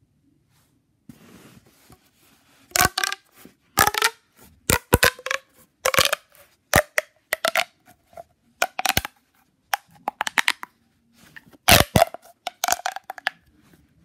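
Plastic pop tube fidget toy being stretched and bent, giving a series of short, sharp crackling bursts, some with a brief ringing tone, about fifteen in ten seconds with short gaps between them.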